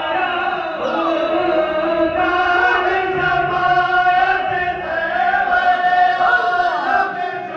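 A group of men chanting zikr together, many voices overlapping on long held notes.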